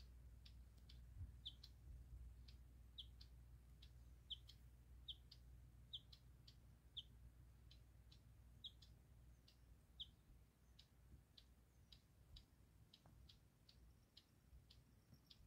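Near silence, with faint short high chirps repeating about once or twice a second from a small creature, over a low steady rumble.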